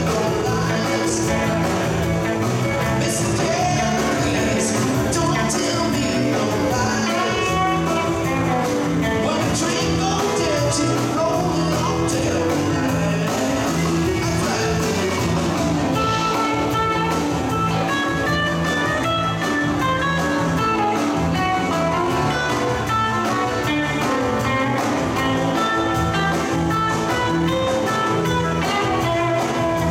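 Live electric band playing blues-rock: electric guitars, bass guitar and drum kit with cymbals. From about halfway through, a lead electric guitar plays a clear run of single notes over the band.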